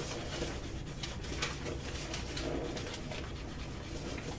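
Burnishing tool handled against a wet leather holster edge while its fit is tried: a run of light clicks and scrapes, with a few faint low hums.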